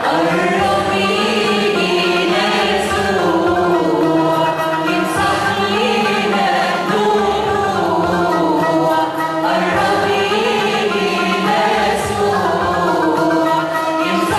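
Church choir singing a Christian hymn (tarneema), many voices holding long sustained notes together.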